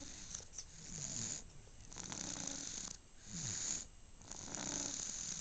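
Snoring in sleep: about four breaths, roughly a second apart, each a soft hissing rasp.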